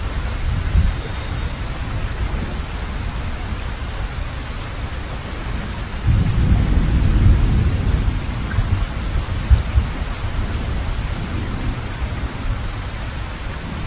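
Steady heavy rain with a low rumble of thunder; a louder roll of thunder swells about six seconds in and dies away over a few seconds.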